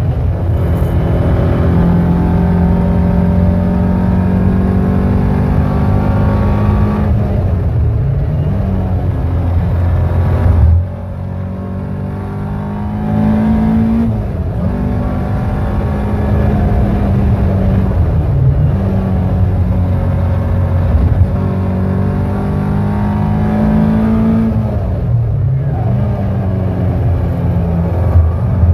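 Caterham R400's four-cylinder engine driven hard on track, heard from the open cockpit: the engine note climbs through the revs and breaks off at gear changes again and again. About eleven seconds in it drops away for a couple of seconds as the throttle is lifted, then picks up again.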